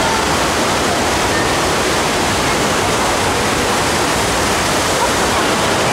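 Steady, loud rush of water from a surf-simulator wave ride, a thin sheet of pumped water streaming up the sloped ride surface and spraying as a bodyboarder rides on it.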